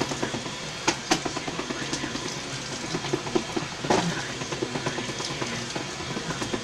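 Electric hand mixer running steadily in a bowl of cookie dough, its beaters clicking and knocking against the bowl now and then, with a few sharper knocks about a second in and about four seconds in.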